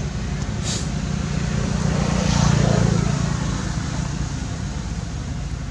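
Steady low hum of a passing motor vehicle's engine, growing louder about two seconds in and then fading.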